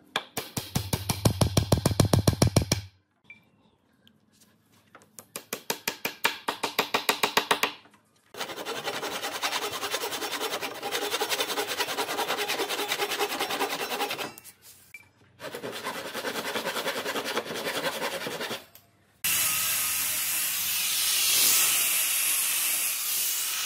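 Hand saw cutting protruding wooden pegs flush with a pine frame, in fast rhythmic strokes and then longer runs of sawing broken by short pauses. About 19 seconds in, a small angle grinder with a sanding disc starts and runs steadily, sanding the wood.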